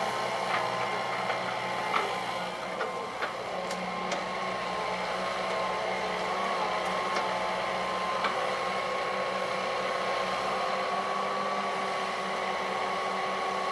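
Hitachi EX120 hydraulic excavator's diesel engine running under load with a steady whine as the machine digs and dumps soil. A few sharp clicks come in the first few seconds and once more about eight seconds in.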